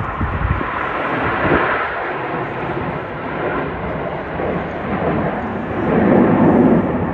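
Formation of Aermacchi MB-339 jet trainers flying past during an aerobatic display. Their turbojets make a loud rushing noise that swells to its loudest about six seconds in.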